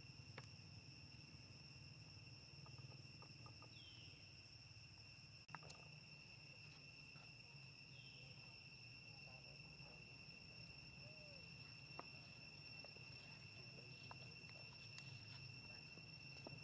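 Faint outdoor insect chorus: a steady high-pitched trill that holds without a break, with two short falling chirps and a few soft clicks.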